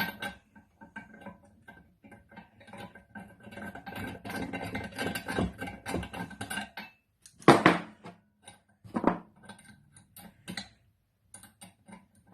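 Metal hand tools, nuts and sockets clinking and scraping against each other while a nut-and-socket puller is worked on a turbo wastegate bush. There is a busy run of small clicks in the middle and two louder metal clanks later on.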